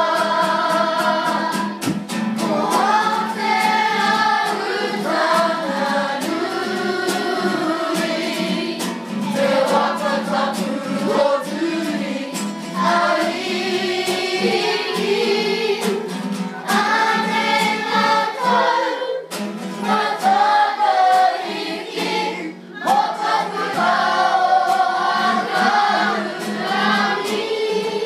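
A choir of voices singing a school song in te reo Māori.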